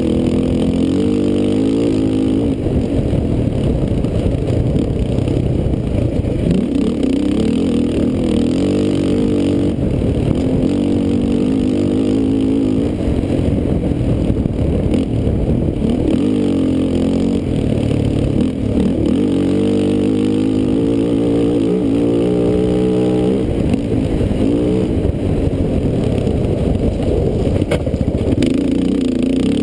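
Quad (ATV) engine running hard under load, its pitch climbing and dropping again and again with throttle and gear changes, heard close from the machine itself.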